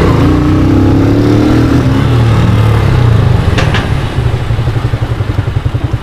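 Honda CGL 125's single-cylinder four-stroke engine heard from the saddle, revving up as the bike accelerates for about two seconds, then easing off the throttle. A short clack comes about three and a half seconds in, and the engine then runs at low revs with a loping beat.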